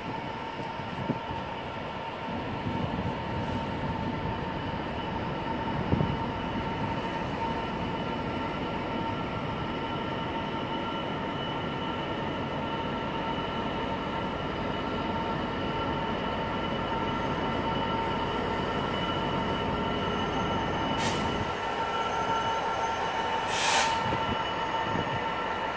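Class 66 diesel-electric freight locomotive hauling a freight train on its approach, growing slowly louder as it nears. Steady high-pitched squealing tones ring over its rumble throughout.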